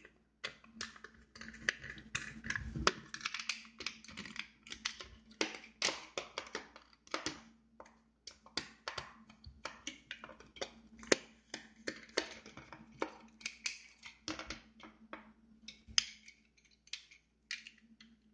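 Small screwdriver working the screws out of a spring airsoft pistol: many irregular little clicks and short scraping sounds as the driver turns and the pistol parts are handled, a few clicks standing out louder.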